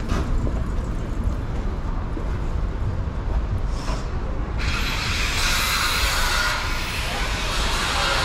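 City street traffic: a steady low rumble of passing cars. About halfway through, a louder hissing rush sets in suddenly and keeps going.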